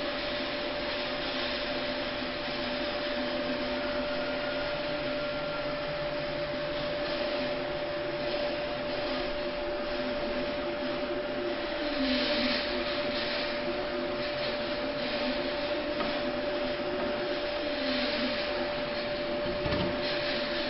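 Steady background hiss with a constant mid-pitched hum, and brief rustling as hands work the printer's rubber drive belt into its clip, about twelve seconds in and again near the end.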